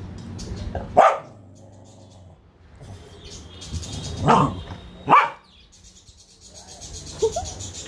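Small white spitz-type dog barking sharply, three loud barks about a second, four and five seconds in and a softer one near the end: its protest at being taken for a bath.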